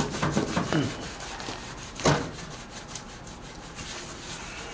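A hand-held cloth scrubbing back and forth over a painted metal street sign in rapid, repeated strokes, with one harder stroke about two seconds in, wiping off spray-paint graffiti loosened by a cleaning solution.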